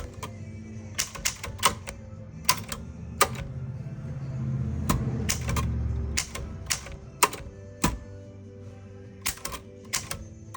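Manual typewriter being typed on for a type sample: single keys striking the paper on the platen one at a time at an irregular, unhurried pace. A low rumble swells in the middle.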